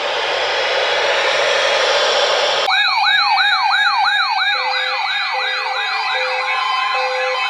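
Steady radio static hiss, cut off suddenly a little under three seconds in by an electronic siren yelping about four times a second, layered with steady tones and a pulsing beep.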